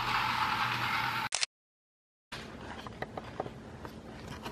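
Battery-powered toy train's small electric motor and gears whirring steadily, cut off suddenly about a second in. After a short silence come quieter handling rustle and scattered light clicks and knocks as the camera is moved.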